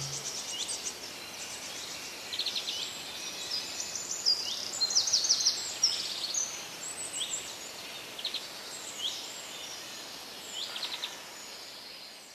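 Small birds chirping and trilling in quick runs of high notes over a steady faint hiss, busiest in the middle and thinning out towards the end.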